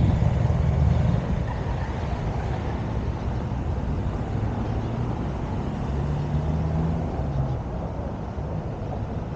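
Street ambience dominated by the low rumble of motor traffic, loudest in the first second, with a steady engine hum appearing about six seconds in.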